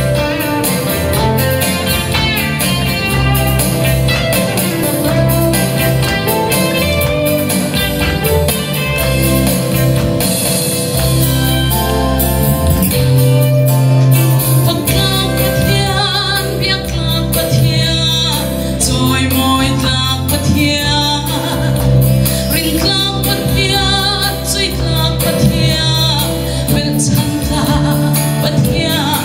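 A woman sings a gospel song in Mizo solo into a handheld microphone over instrumental backing with a steady bass, with vibrato on her held notes.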